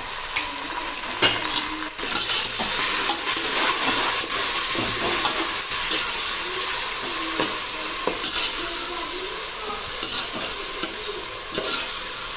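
Chopped onions, ginger-garlic paste and fresh tomatoes sizzling in hot oil in a large metal pot while a metal ladle stirs them, scraping and clicking against the pot. The sizzle swells about two seconds in.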